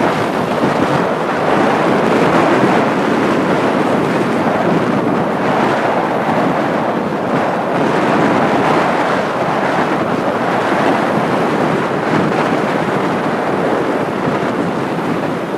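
Strong wind rushing steadily and loudly, buffeting the microphone.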